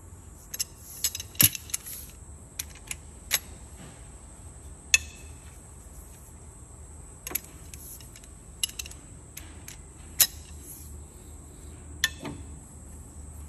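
Steel socket and breaker bar clinking against the cylinder-head bolts while the bolts are turned through a set angle: scattered sharp metallic clicks and taps, the loudest about a second and a half, five and ten seconds in. A steady high insect hum runs underneath.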